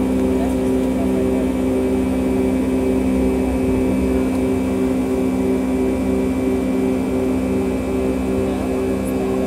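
Boeing 757-300 jet engines at climb power, heard inside the passenger cabin over the wing: a steady roar and drone, with a hum that pulses in a regular beat.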